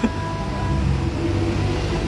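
Background music with held tones and a steady low bass line.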